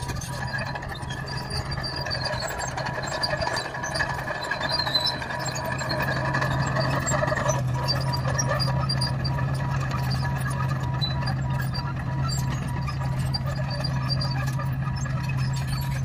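Komatsu crawler bulldozer's diesel engine running steadily as the machine rips up an old double bituminous surface treatment (chip-seal) road surface.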